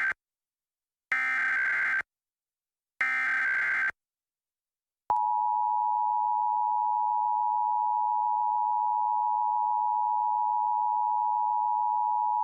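Emergency Alert System broadcast tones. First come the rasping, warbling data bursts of the SAME header, each about a second long and a second apart. About five seconds in, the steady two-tone EAS attention signal starts and holds unbroken.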